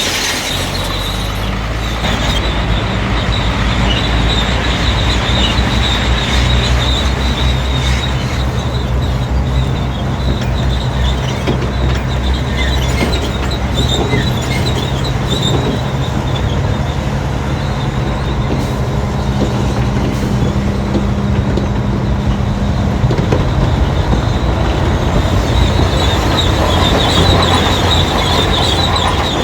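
Crawler bulldozer's diesel engine running steadily under load while its steel tracks squeal and clatter.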